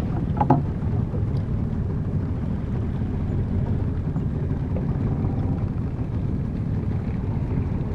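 Small fishing boat's motor running steadily, heard as a constant low rumble with some wind and water noise.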